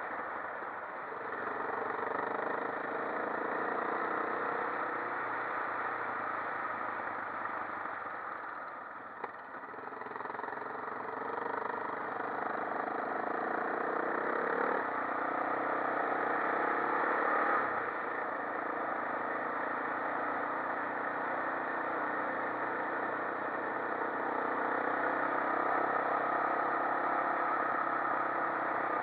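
Quad bike engine running under way, its pitch rising and falling as the revs change, with a single short click about nine seconds in.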